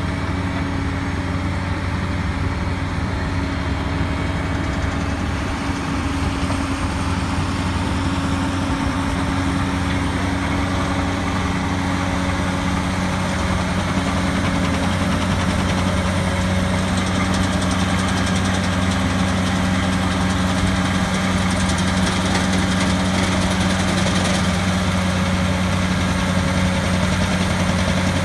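Heavy diesel engine of a cable-laying plough rig running steadily with a deep, even hum. It gets slightly louder about halfway through.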